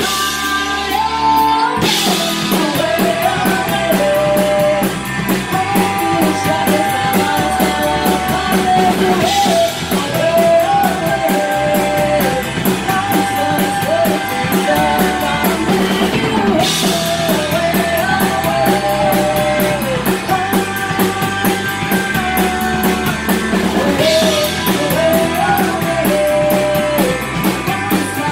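Punk-leaning rock trio playing live: drum kit, electric guitar and bass driving steadily, with a melody line riding on top.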